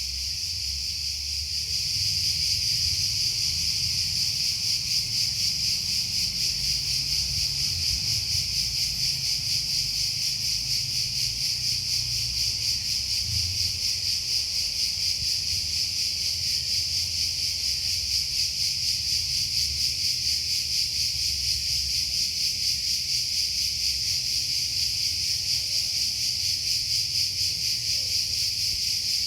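A chorus of cicadas buzzing, a steady high shrill drone with a fine rapid pulse that swells slightly about two seconds in.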